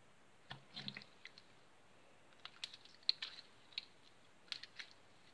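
Slime being squeezed and pulled apart by hand: faint, scattered sticky clicks and squelches in small clusters.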